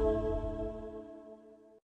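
Background music holding a sustained chord, fading away and cutting off near the end.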